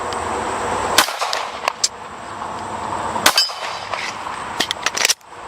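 Two 9mm pistol shots about two seconds apart, the second followed by the ringing clang of a hit steel target. Smaller metallic clicks of a magazine change come between the shots and near the end.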